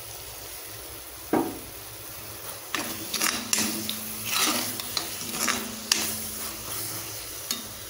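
A metal perforated spatula stirs and scrapes thick beetroot halwa cooking in ghee in a heavy-bottomed iron kadai, over a soft sizzle. There is one scrape about a second in, then a run of quick scrapes and clicks against the pan from about three seconds in.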